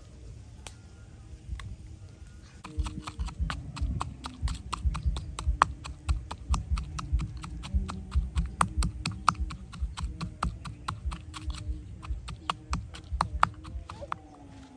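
Rapid, uneven knocking, about four or five sharp strikes a second with a dull thump under each, starting about three seconds in.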